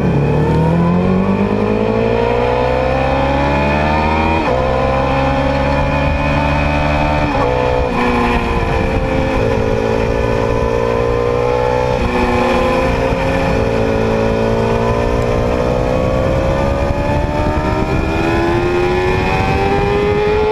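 2010 Yamaha R6 inline-four engine running on only three cylinders, its revs dropping at first, then rising and falling several times. The misfire comes from bent valves in cylinder four.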